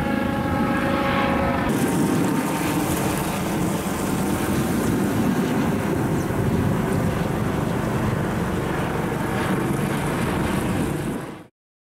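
Jet ski engines running, a steady hum at first that turns into a louder rush of engine, water and wind noise about two seconds in as the craft get under way. The sound cuts off suddenly just before the end.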